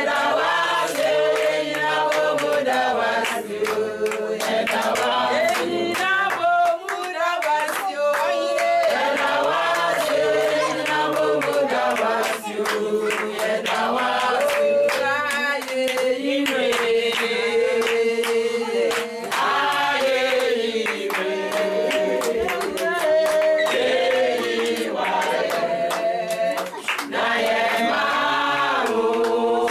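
A group of voices singing together, with hands clapping in time to the song.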